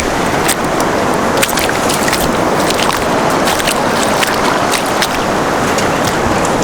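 Sea washing against a stony shore: a steady rush of water with many small, sharp clicks and ticks scattered through it.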